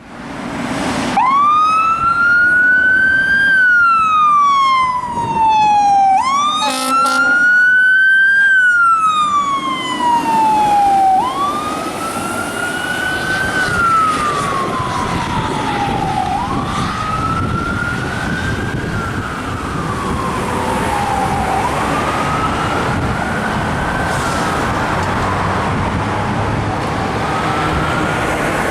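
Fire truck siren wailing, rising and falling about every five seconds, with a brief air horn blast about six to seven seconds in. After about ten seconds the wail grows fainter under steady traffic noise as the truck moves off.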